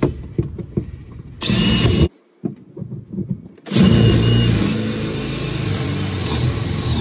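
DeWalt cordless drill boring into a plywood panel: a short run about a second and a half in, then after a pause a longer steady run that lasts to the end.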